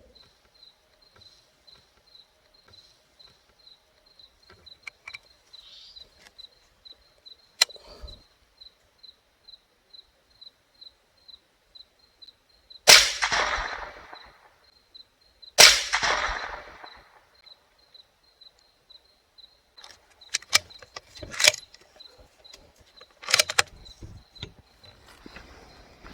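.22 LR bolt-action rifle (CZ 457) fired twice, about three seconds apart, each crack followed by a short rolling echo, with a few sharp clicks afterwards. A faint, steady high chirp repeats about twice a second throughout.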